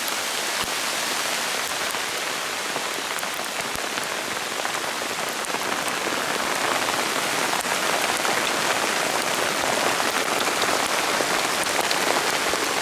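Graupel (snow pellets) falling on the fabric of a Bereg UP-5 tent and the surrounding ground: a steady, dense hiss made of countless tiny ticks.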